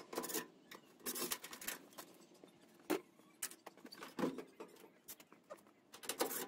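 Irregular clicks, knocks and rustling from hands and a yellow-handled nut driver working the screws off the back panel of a Samsung top-load washer, with the camera brushing against clothing.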